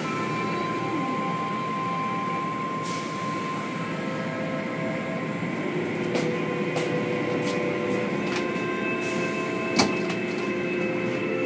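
Automatic tunnel car wash running: a steady wash of water spray and machinery noise with several held whining tones, and scattered knocks, one sharper knock near the end.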